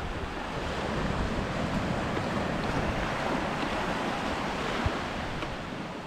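Sea waves surging up a beach, a rushing wash of surf that builds over the first second or two and slowly eases off, with some wind on the microphone.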